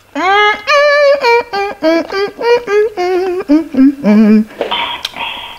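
A woman humming a wordless sing-song tune of enjoyment as she tastes food, the notes wavering and stepping down from high to low.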